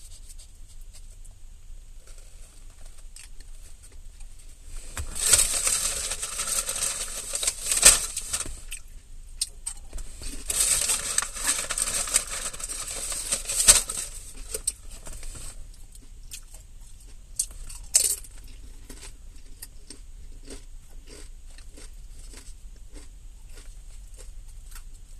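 Close-up chewing of crunchy salad greens: two long spells of loud, crackling crunching in the first half, then quieter, slower chewing clicks.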